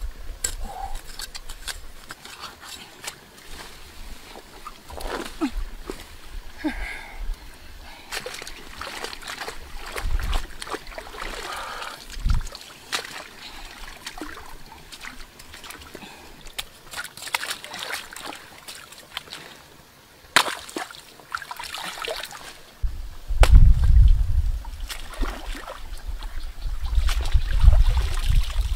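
Hands pulling and digging taro from soil and plants: scattered rustles, snaps and soft knocks. In the last few seconds, louder water splashing and sloshing as the muddy tubers are swished about in a shallow stream to wash them.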